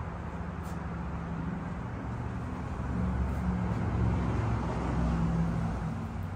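Low, steady rumble of road traffic, swelling about three seconds in as a vehicle passes and easing off again near the end.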